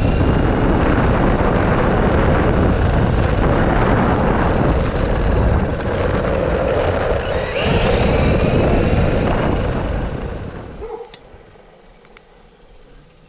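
2WD brushed 1/10-scale RC truggy on a full-throttle speed run: a loud rushing noise with the electric motor's whine, which rises in pitch as it speeds up about seven to eight seconds in. The noise dies away about eleven seconds in.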